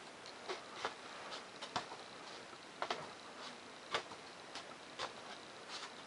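Faint handling noise: scattered light clicks and taps at uneven intervals as a foam board model biplane is picked up and turned in the hand.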